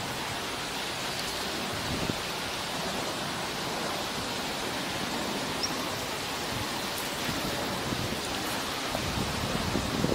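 Steady outdoor background hiss, even and unbroken, with a few faint knocks about two seconds in and again near the end.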